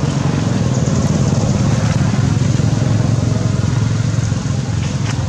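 A motor vehicle engine running steadily, a low rumble.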